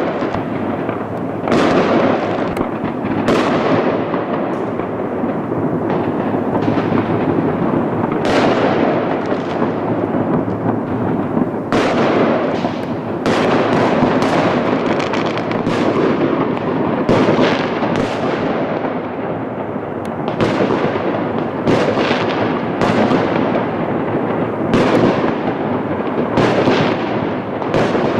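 Fireworks going off in a dense, continuous barrage: many overlapping bangs, with a sharp new report every second or two, each trailing off in echo.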